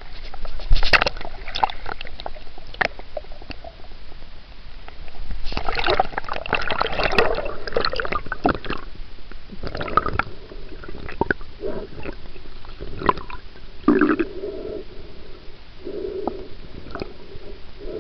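Water sloshing and gurgling around a camera held underwater while swimming, with scattered clicks and knocks. It is busiest a few seconds in, and short low hums come near the end.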